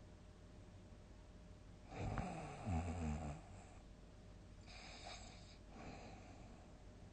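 A person snoring in deep sleep: after a quiet stretch comes one loud, low snore about two seconds in, lasting about a second and a half, then a softer breath around five seconds in.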